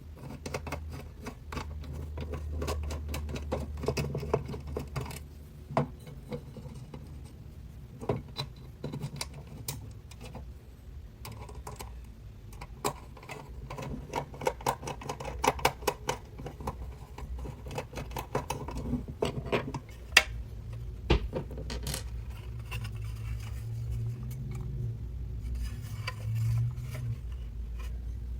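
Irregular small clicks, taps and light scraping of hard objects being handled, over a low rumble, with one sharper knock about twenty seconds in.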